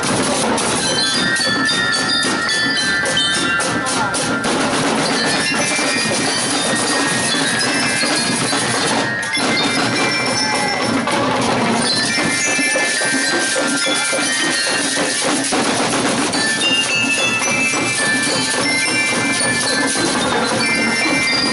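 Marching drum-and-lyre band playing: snare and bass drums keep a steady marching beat while bell lyres ring out a melody, with cymbals.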